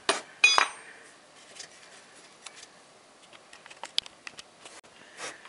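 Small metal clinks and ticks from hand tools on the crankshaft pulley bolts as the already-loosened bolts are spun out. Two sharp clinks at the start, the second with a short metallic ring, then faint ticking and one more sharp click about four seconds in.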